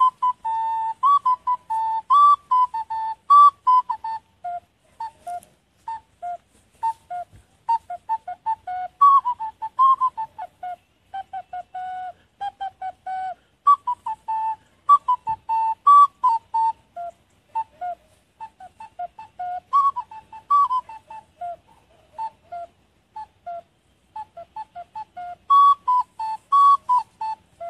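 Olive-wood ocarina played in a quick run of short, separate notes, some sliding in pitch, as a rendering of the cuckoo's song.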